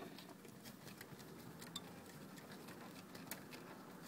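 Near silence with a few faint ticks and light scratches as screws are worked out of the metal back panel of a multi-zone amplifier.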